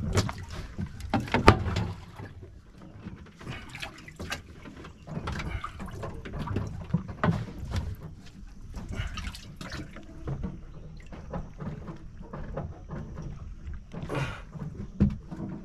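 Water sloshing and splashing aboard a bass boat, with irregular knocks and clatter of handling. A faint steady high tone comes in about halfway through.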